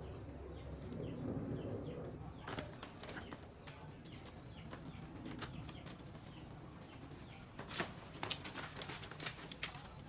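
A dove cooing in the first two seconds, then a run of sharp clicks and knocks with leaf rustle as a long pole works at the stalk of a banana blossom to cut it down, the loudest knock about eight seconds in.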